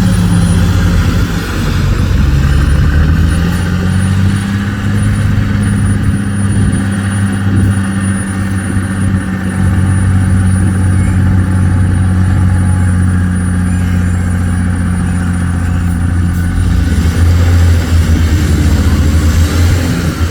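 Dump truck's heavy engine running loudly. Its speed dips about two seconds in and climbs back, then holds steady, and it gets heavier and lower near the end.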